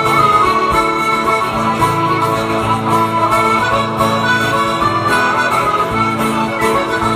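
Instrumental break in a live Irish folk song: a strummed acoustic guitar with a reedy lead instrument playing the tune.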